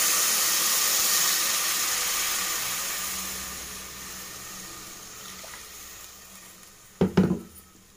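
Water poured in a stream into an aluminium pressure cooker onto fried mutton pieces and masala, splashing loudly at first and fading as the pour thins and stops. Near the end come two short knocks close together.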